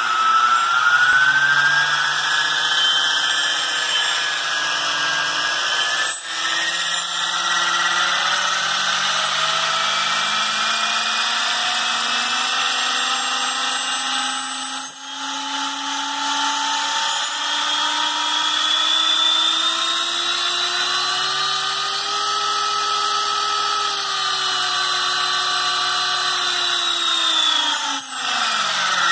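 Align T-Rex 550e electric helicopter's brushless motor and gear train spinning the rotor head with no main blades fitted, on a bench motor check. A steady whine whose pitch drifts up and down, then falls away near the end as the motor spools down.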